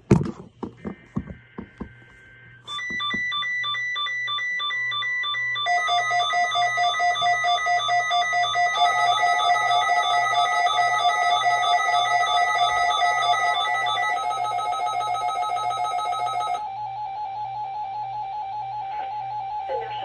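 Several NOAA weather alert radios set off together by an emergency-alert test broadcast. Their alarms are pulsing beeps at several different pitches that start about two and a half seconds in. More radios join over the next several seconds, and some fall silent near the end. At the start there are a few clicks and a short warbly data burst from the broadcast's digital header.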